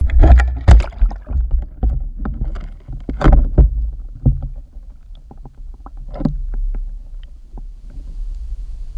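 Camera being plunged into the water and moved about underwater: a steady low water rumble against the housing, with sharp knocks and splashy clicks. The knocks are loudest in the first second and again around three seconds in.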